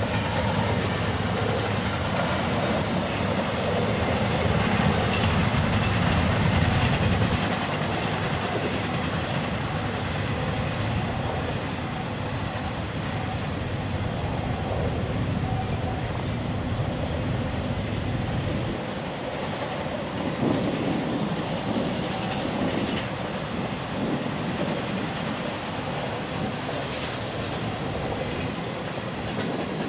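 Freight train rolling past, its steel wheels clacking over the rail joints. A heavy low rumble through the first part drops away about two-thirds of the way in, leaving the lighter rattle of the cars.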